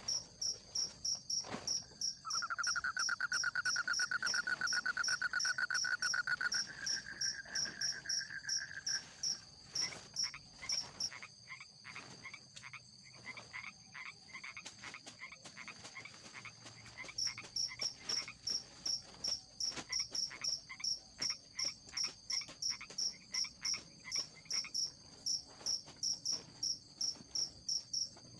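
Forest insects chirping in a steady high pulse, about two chirps a second, with a break in the middle. About two seconds in, a fast, lower trill starts and runs for some seven seconds, rising a little in pitch. After that, another call repeats about twice a second.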